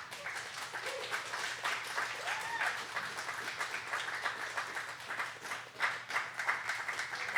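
Audience applauding after a spoken-word poem, with dense clapping and a faint whoop or two about one to three seconds in.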